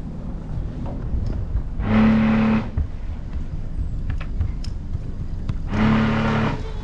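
A sailing yacht's bow thruster run in two short bursts about four seconds apart, each a steady humming whine over a rush of churned water, starting and stopping abruptly, as the yacht is worked off a tight berth. Under them, the yacht's engine idles with a steady low rumble.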